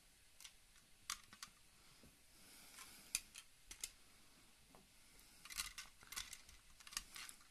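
Faint scattered clicks and taps of small die-cast model cars being handled and set down on a cloth, bunching together near the end.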